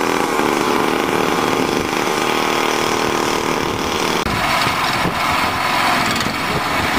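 Vehicle engine running, with off-road engine noise throughout. The sound changes abruptly about four seconds in, as at a cut to another shot.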